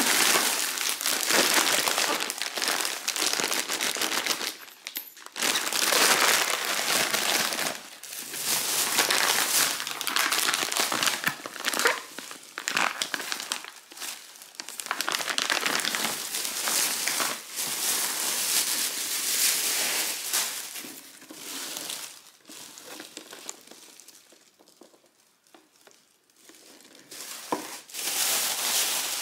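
Thin plastic grocery bags crinkling and rustling as hands open them and lift out packaged food, in irregular bursts with short pauses and a quieter stretch a little before the end.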